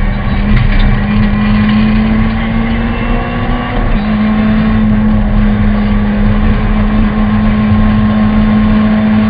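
Honda Civic VTi rally car's engine pulling hard at high revs, heard from inside the cabin as a loud steady drone, with a short dip in pitch about four seconds in like a gear change.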